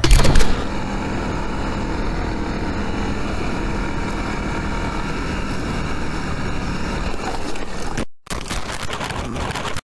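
A loud burst at the very start, then the Honda CRF300L dual-sport motorcycle's single-cylinder engine running steadily under way, mixed with wind and road noise. The sound drops out briefly about eight seconds in and cuts off just before the end.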